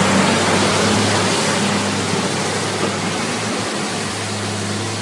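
Heavily loaded logging truck's diesel engine pulling under load up a muddy track: a steady low engine hum beneath a loud, even rush of noise.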